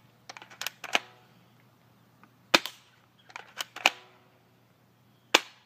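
Spring-powered airsoft gun being cocked and fired: a string of sharp clicks and snaps, the two loudest about two and a half and five and a quarter seconds in. After a couple of the clicks comes a brief metallic ring.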